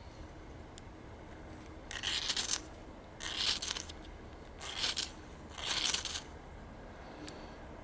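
Ferrocerium rod struck four times with a scraper, each stroke a short hissing scrape, throwing sparks to light tinder for a campfire.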